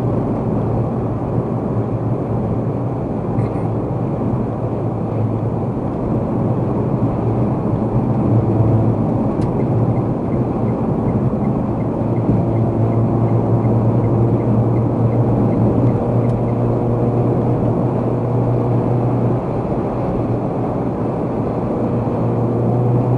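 Steady road and engine drone inside a car cabin at expressway speed, low and constant. A faint, regular ticking at about two a second runs for several seconds in the middle.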